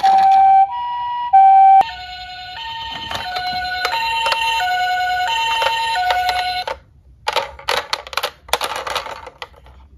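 Electronic two-tone hi-lo siren of a battery-powered toy ambulance, alternating between two pitches and cutting off suddenly about two-thirds of the way in. Then scattered clicks and clatter of plastic toy cars being handled in a cardboard box.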